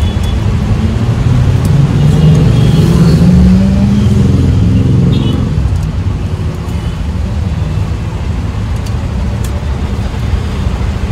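Auto-rickshaw engine running amid road traffic, heard from inside the open-sided cab. The engine note rises and grows louder about two seconds in, then eases off after about five seconds.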